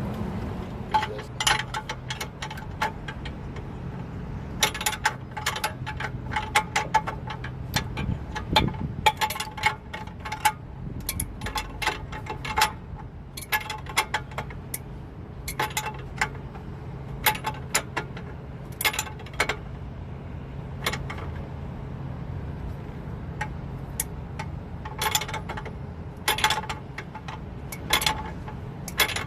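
Hand tools working on a car's steel suspension parts: irregular sharp metallic clinks and clicks, many with a short ring, coming in clusters. A steady low hum runs underneath.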